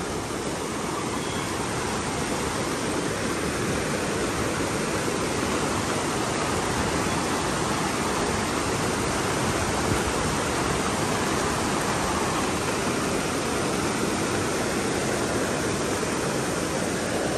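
Heavy wind-driven rain pouring down steadily, an even, unbroken hiss of rainfall.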